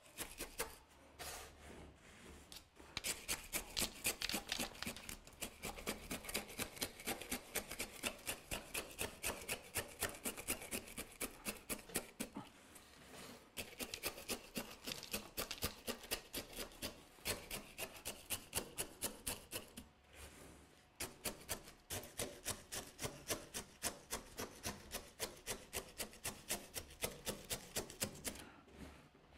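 Granular bonsai substrate being worked into a pot around a root ball: a rhythmic run of short scraping strokes, about four a second, with two brief pauses. The strokes push and settle the substrate so that no air pockets form under the roots.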